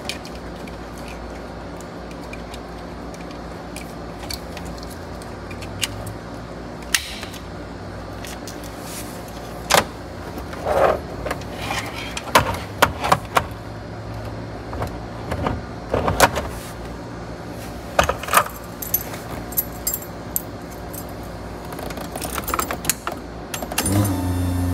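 Hands plugging wiring-harness connectors together and handling a car stereo head unit: scattered plastic clicks, knocks and rustles. Near the end the ignition key jingles and turns, and a low steady hum comes on.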